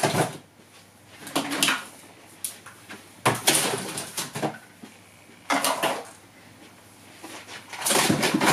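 Toys and packaging being put into a cardboard box: four short bursts of rustling and knocking, with quiet gaps between.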